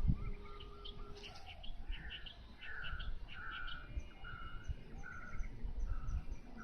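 A bird calling over and over, a short note about every two-thirds of a second, with quicker high chirps among the first calls. A steady low rumble runs underneath.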